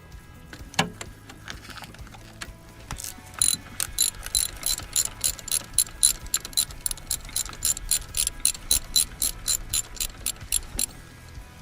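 Socket ratchet wrench clicking in a quick, even run of about four clicks a second from about three seconds in until near the end, as a 13 mm bolt is worked loose. A single knock about a second in.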